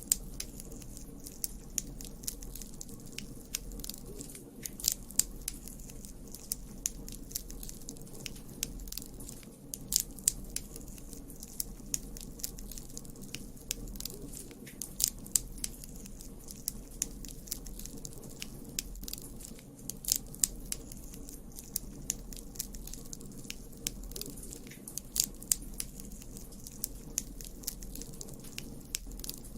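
Campfire burning: sharp, irregular crackles and pops over a low, steady rumble of the flames, with clusters of louder pops about every five seconds.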